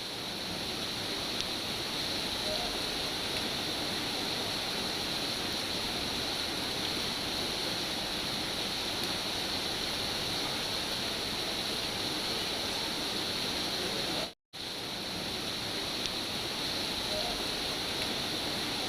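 Steady rain, an even hiss. It cuts out for a moment about two-thirds of the way through, then comes back.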